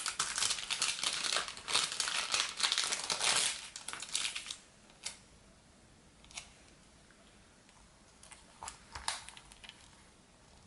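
Sticker sheet crinkling and rustling as it is handled and laid down, for about four and a half seconds, then a few faint ticks as a sticker is peeled off the sheet and handled over a paper planner page.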